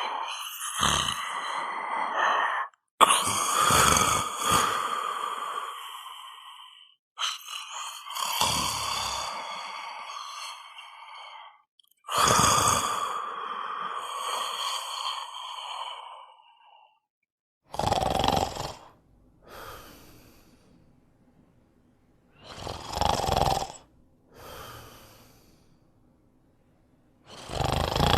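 Snoring, first as four long drawn-out snores of three to five seconds each. From about 18 seconds in it changes to shorter, deeper snores about five seconds apart, each loud snoring breath followed by a fainter breath out.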